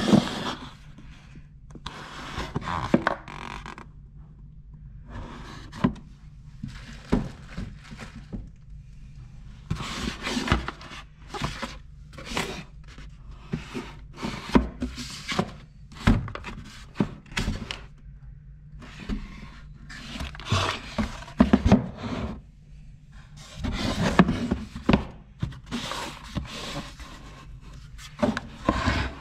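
Cardboard box being handled, turned over and set down on a desk: irregular scrapes, rubs and thunks.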